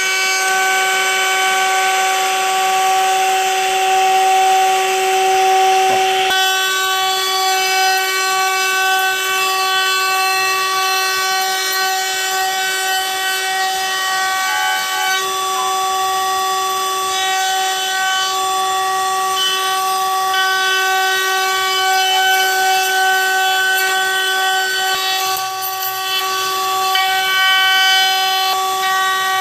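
Pin router spindle running at high speed, a steady high whine made of several tones, as its custom bit cuts into a Honduras mahogany guitar neck. A rougher cutting hiss over the whine drops away about six seconds in.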